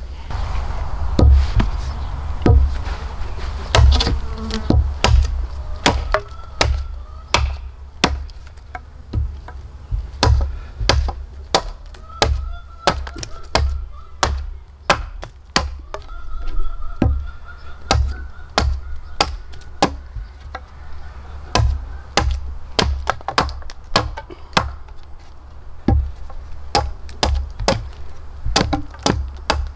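Repeated sharp strikes of a hand tool on wood, one or two a second at an irregular pace, as in nailing or chopping during fence building. An insect buzzes close by for several seconds in the middle.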